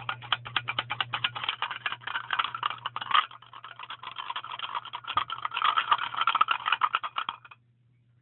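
Small magnet pieces clicking and rattling in and against a small metal tin as it is handled, a fast irregular clatter that stops near the end.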